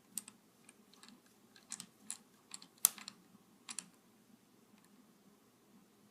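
Irregular light clicks and taps of a small screwdriver and tiny screws being handled and set into a laptop's screen frame, about a dozen over the first four seconds, the loudest a sharp click near three seconds in.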